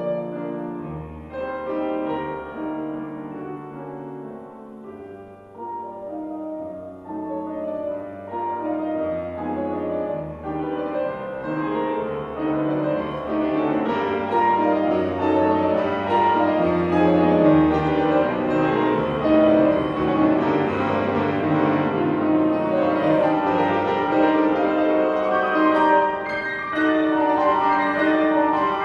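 Grand piano played solo in a classical piece; the playing starts soft and swells louder and fuller from about a third of the way in.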